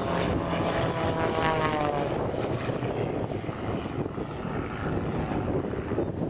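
Propeller-driven aerobatic display aircraft flying past. Its engine and propeller note falls in pitch over the first two seconds as it goes by, then gives way to a steady drone with no clear note.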